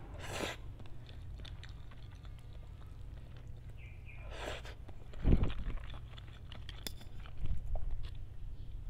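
Close-up mouth sounds of eating noodles: two short slurps as mouthfuls are drawn in, about half a second and four and a half seconds in, with chewing between and after them. A low thump comes about five seconds in, over a steady low hum.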